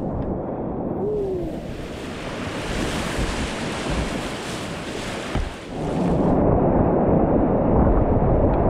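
Rushing whitewater of a river rapid, picked up by a helmet-mounted action camera, with wind buffeting the microphone. About six seconds in the sound turns muffled and louder, its hiss gone and a heavy low rush left.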